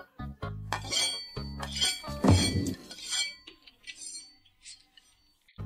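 Chopsticks and tableware clinking against ceramic plates and bowls: a run of sharp, ringing clinks over about two seconds, the loudest about two seconds in, then a few faint taps. Background music with a beat plays at first and comes back right at the end.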